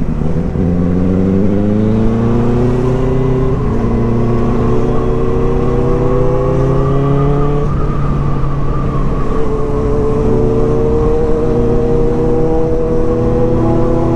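Inline-four superbike engine accelerating hard through the gears: its pitch climbs steadily, drops back at each upshift about three and a half and seven and a half seconds in, and climbs again.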